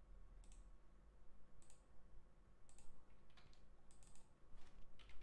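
Faint, scattered clicks of a computer mouse and keyboard, about seven single clicks spread irregularly, roughly one a second.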